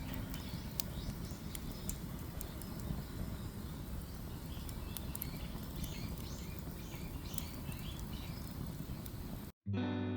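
Campfire crackling in scattered sharp snaps, with birds chirping over a steady low outdoor rumble. About nine and a half seconds in it cuts to a moment of silence and plucked guitar music begins.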